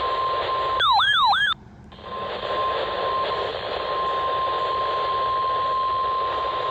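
Emergency alert warning tone: a steady single high beep at about 1050 Hz over radio static, ahead of a severe thunderstorm warning. About a second in it breaks for a brief, fast-warbling siren-like sound and a moment's quiet, then the steady tone resumes.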